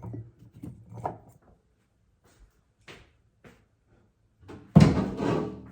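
Light knocks and clatter of things being handled in a kitchen, then a loud bang about five seconds in as a kitchen door is shut.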